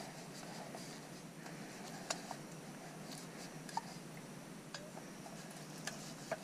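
A cloth wiping out a titanium canteen cup, with a few sharp, light clicks from the metal cup.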